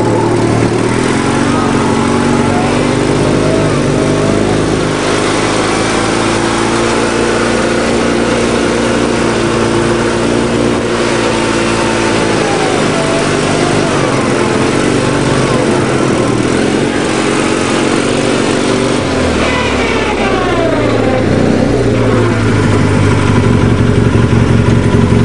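Argo amphibious ATV's engine running as it drives, its pitch rising and falling with speed, settling into a slower, even beat near the end.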